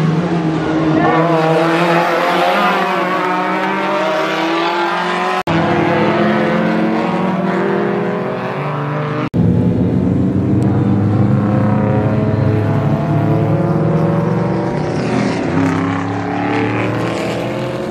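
Several saloon racing cars' engines revving hard through a hairpin and down the straight, their engine notes rising and falling as they pass. The sound breaks off suddenly twice, about five and nine seconds in, and starts again.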